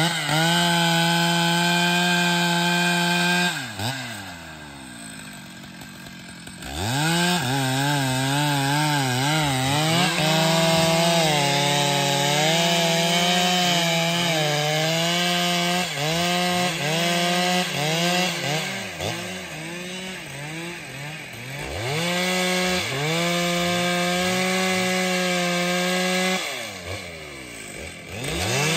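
Stihl MS 881 two-stroke chainsaw cutting through a log, its engine pitch wavering as the chain loads up in the wood. It drops back to idle twice, about four seconds in and again near the end, then revs up into the cut again.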